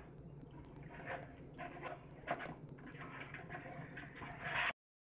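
Hands squishing and rubbing raw frog legs in a buttermilk-and-egg marinade in a plastic bowl: irregular wet squelching and rubbing. A louder squelch comes just before the sound cuts out briefly near the end.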